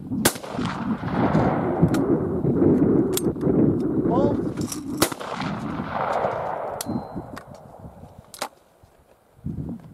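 A single shot from a Perazzi DB81 trap shotgun a moment in, followed by a long rolling rumble that dies away over about seven seconds. A few sharp clicks are scattered through it.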